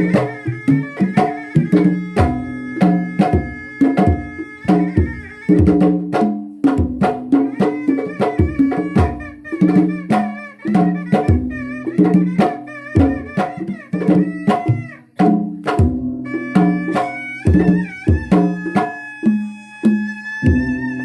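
Sundanese pencak silat drum music (kendang pencak): hand drums playing a quick, busy rhythm under a sustained, wavering high melody from a tarompet reed pipe.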